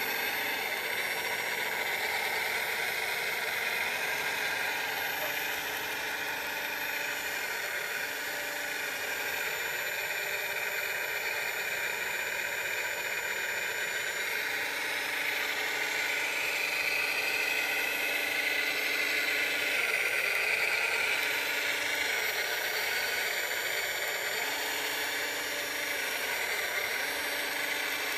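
Radio-controlled model wheel loader driving and working its bucket: a steady electric motor whine that swells for a few seconds past the middle, with a lower hum that cuts in and out several times.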